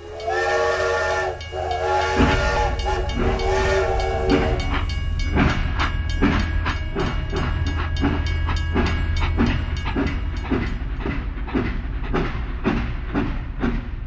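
Battery-powered toy steam locomotive running on its plastic track, its sound unit blowing a whistle in the first few seconds, then playing a steady, quick chuffing over the low hum of its motor.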